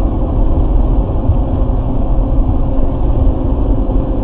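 Steady in-cabin road noise of a car cruising at about 110 km/h: a continuous low rumble of tyres, engine and wind.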